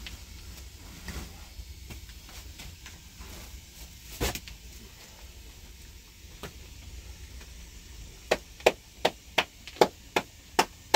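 One sharp knock about four seconds in, then a steady run of about eight sharp strikes near the end, roughly two and a half a second, typical of a tool striking repeatedly.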